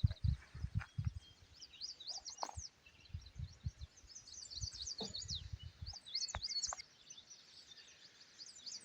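Small songbirds chirping in quick, high, repeated notes throughout, with a low uneven rumble during the first six seconds and a few faint knocks.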